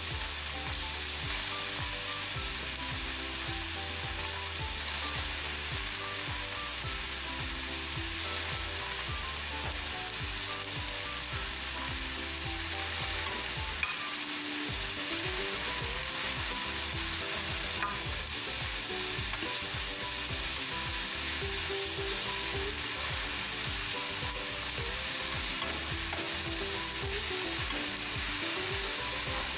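Kale and bell peppers sizzling steadily in hot oil in a wok while being stirred and turned with a wooden spatula.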